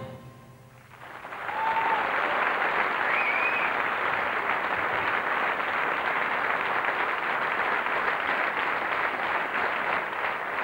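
A large audience applauding at the end of a song: after the band's last note dies away, the clapping swells in about a second in and holds steady and loud.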